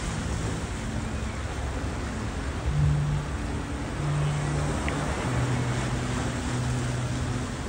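Steady rush of wind and water by the river. Underneath it, a slow line of low sustained music notes changes every second or so.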